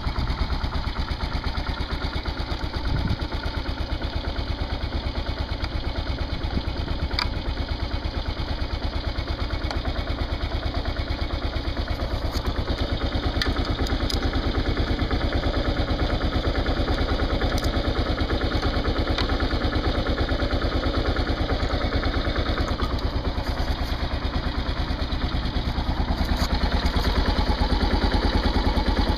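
Kawasaki KLR motorcycle's single-cylinder engine idling steadily as it warms up after a cold-weather start, running a little louder near the end.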